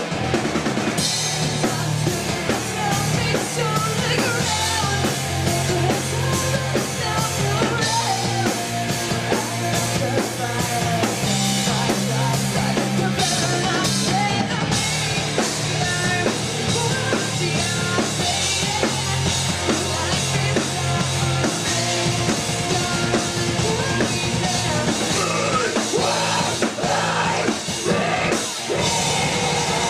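Live rock band playing: female lead vocals over electric guitars, bass guitar and drum kit, with a male voice joining near the end.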